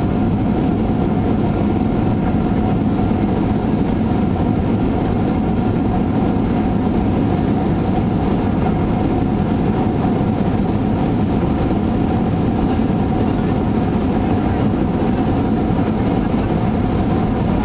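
Boeing 737-800 cabin noise during the landing roll on the runway: a steady low rumble of the engines and wheels with a faint steady hum above it.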